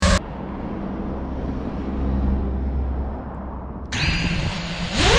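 FPV quadcopter's motors and propellers heard through its onboard GoPro's microphone: a steady low rumble with wind noise, after a short loud burst at the very start. About four seconds in it turns suddenly brighter and hissier, with a faint high motor whine.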